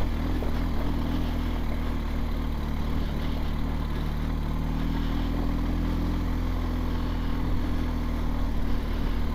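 BMW R 1250 GS Adventure's boxer-twin engine, fitted with an Akrapovič exhaust, running steadily at low revs as the bike rolls along at walking-to-jogging pace.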